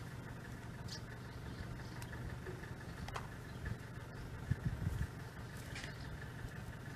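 Steady low hum of an idling engine, with a few small plastic clicks as the parts of a toy plane are handled and pressed together.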